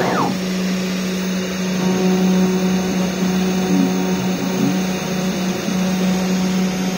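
Spindle motor of a home-built CNC router running steadily while it engraves, a loud even whir with a steady low hum. A short high whistle rises and falls right at the start.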